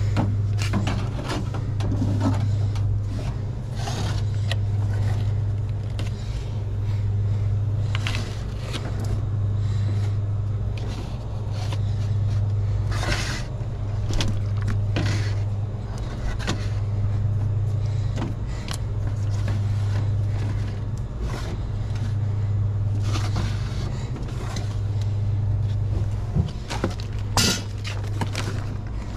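Plastic sports-drink bottles being handled and set onto a metal store shelf, a string of short clacks and rustles. Under them runs a steady low hum that swells and fades every two seconds or so.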